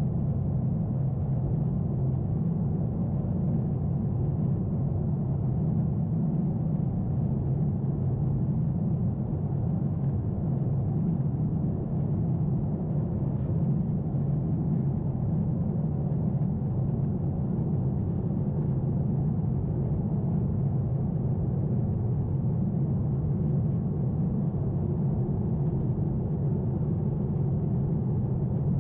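Steady low rumble of a Boeing 747-8 in flight, heard inside the passenger cabin: the drone of its GEnx-2B engines and the rush of air over the fuselage.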